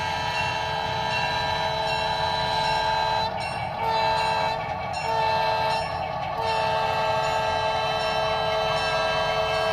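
Model diesel locomotive's sound-decoder horn sounding a multi-note chord. A long blast ends about three seconds in, then come two short blasts, then a long blast that is still sounding at the end. A steady low rumble from the locomotive runs underneath.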